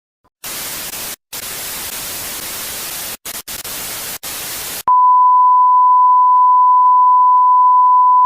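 Static hiss like an untuned television, cutting out briefly about four times, then, about five seconds in, a loud steady 1 kHz test tone.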